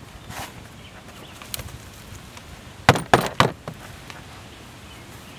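A canvas sneaker knocked out to empty sand from it: three sharp knocks in quick succession about three seconds in.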